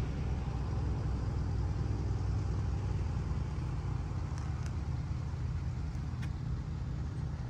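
Outdoor ambience at a mountain overlook: a steady low rumble under a soft hiss, with a few faint high ticks around the middle.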